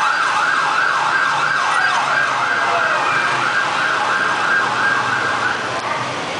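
Siren sounding a fast, repeating up-and-down yelp, about two and a half sweeps a second, which fades out about five and a half seconds in.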